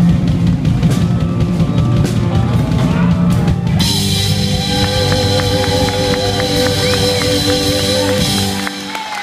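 Live rock band, with drum kit, bass and electric guitars, playing hard. About four seconds in it moves to a held closing chord with a wavering sustained note and a cymbal roll, which stops shortly before the end.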